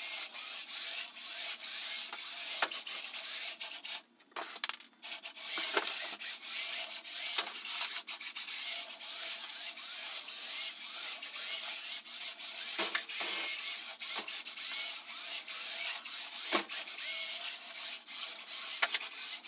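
Drive train of a 15 lb combat robot, two BaneBots RS550 motors through planetary gearboxes, whirring as it drives and turns, with scattered small clicks. The drive drops out briefly about four seconds in.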